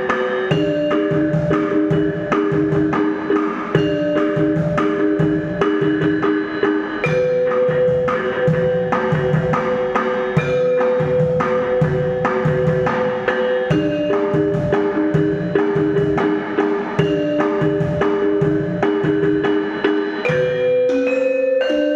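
Ensemble music: a steady beat of sharp, wood-block-like percussion strikes under held melodic notes that change pitch every few seconds.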